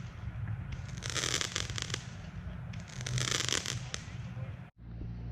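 Roman candles firing, with bursts of dense popping and crackling about every two seconds. Near the end the sound cuts off abruptly and leaves only a low steady hum.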